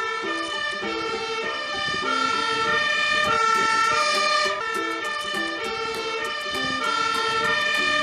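Siren of a Magirus Multistar 2 aerial ladder fire engine sounding on a call-out, stepping between pitches in a repeating cycle every few seconds.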